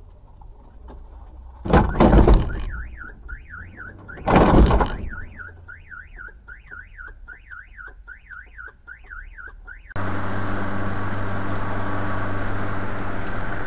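Two loud crash impacts of a car collision, about two and a half seconds apart, followed by a car alarm sounding a fast rising-and-falling warble. About ten seconds in it cuts off abruptly to steady vehicle running noise.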